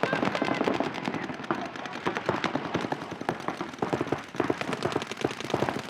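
Several paintball markers firing rapid strings of shots that overlap into a dense, uneven crackle.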